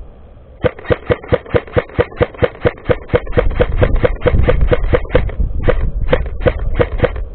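Airsoft gun firing rapid single shots, about four a second, with a short pause about five and a half seconds in, over a low rumble.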